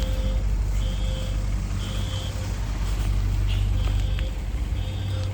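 Building fire alarm sounding its evacuation signal: half-second beeps in the temporal-three pattern, three beeps, a pause, then three more, with a high tone and a low tone together. A steady low rumble runs underneath.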